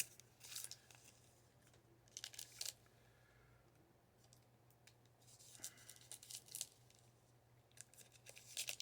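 Baseball trading cards and a foil pack wrapper being handled: faint crisp rustles and flicks in four short bursts, with pauses between them.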